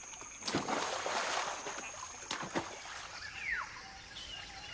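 Water splashing, as of a macaque jumping into a river, starting about half a second in and lasting about a second, followed by two short splashes or knocks and a short falling chirp. A faint high steady whine runs under the first half.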